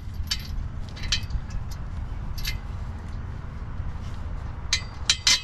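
Scattered sharp metallic clicks and clinks from hand tools and exhaust parts being handled during an exhaust install, with several louder clinks close together near the end, over a low steady rumble.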